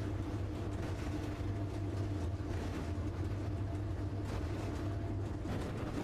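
Electric locomotive running at reduced speed, heard inside the cab: a steady low hum over rolling noise, with a couple of faint knocks near the end.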